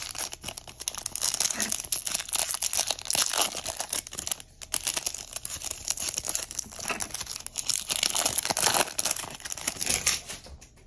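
Foil wrapper of a 2024 Bowman baseball card pack being torn open and crinkled by hand: dense crackling with a brief pause about four and a half seconds in.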